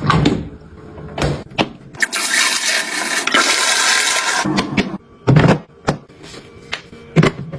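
Dreame L10 Ultra robot vacuum base station running a cycle: a loud rushing whoosh of about two and a half seconds in the middle, between several short thumps and knocks.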